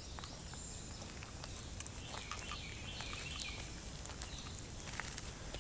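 Quiet outdoor ambience: a bird chirps faintly a few times around the middle, over scattered small clicks and rustles.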